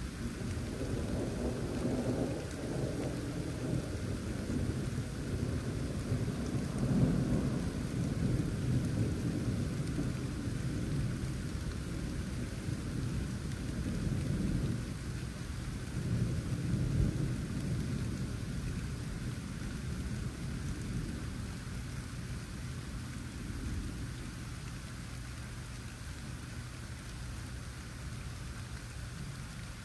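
Steady rain falling, with long rolls of thunder rumbling over it. The thunder swells several times in the first half and fades out well before the end, leaving only the rain.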